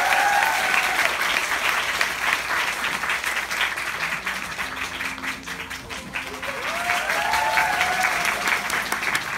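Applause from a theatre audience and the cast on stage: dense clapping that is loudest at the start, eases off midway, and swells again about seven seconds in.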